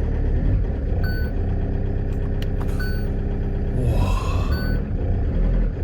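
Camper van engine running just after a cold start in extreme frost, a steady low rumble. Three short high warning beeps sound over it, about one every second and a half to two seconds, and a brief rising tone comes in about four seconds in.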